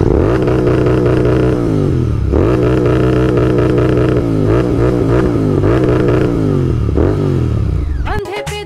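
Motorcycle engine revving hard while riding: the pitch climbs and holds twice, blips up and down several times in the middle, then falls away near the end. It is the raw exhaust sound of a Royal Enfield Continental GT650 fitted with a Red Rooster Performance exhaust.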